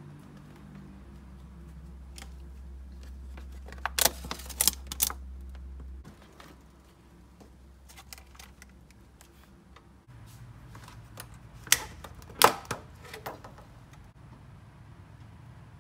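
Clear plastic clamshell food containers being handled, clicking and clattering in two bursts, about four seconds in and again about twelve seconds in, over a low hum in the first few seconds.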